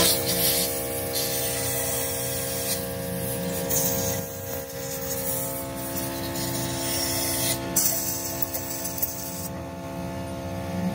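Compressed-air blow gun hissing in several long blasts as it blows out a hydraulic jack's base and pump bore, stopping near the end. A steady machine hum runs underneath.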